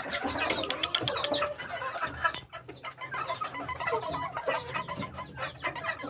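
A group of young Bangkok game chickens calling, with many short overlapping calls.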